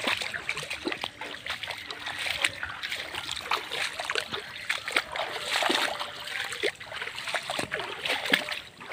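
Footsteps through wet grass and shallow stream water, with irregular splashes and a trickle of flowing water.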